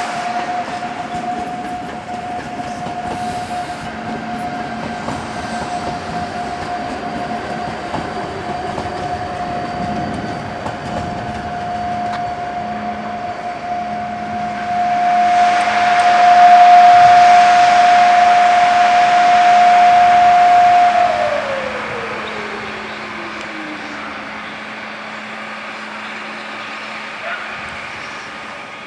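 Czech Railways class 471 CityElefant double-deck electric multiple unit at a station: a steady high electrical whine that winds down, falling in pitch, about 21 seconds in, over a low steady hum. A loud hissing rush swells from about 15 seconds in and fades as the whine winds down.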